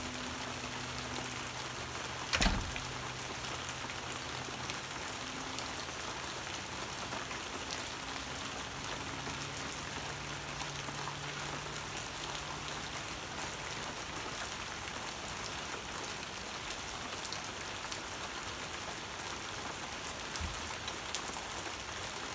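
Steady rain falling, an even hiss of rainfall throughout, with a single sharp knock about two and a half seconds in.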